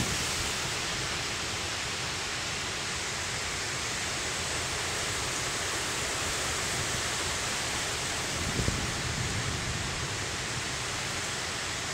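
Heavy downpour of rain falling steadily, with a brief low rumble about three-quarters of the way through.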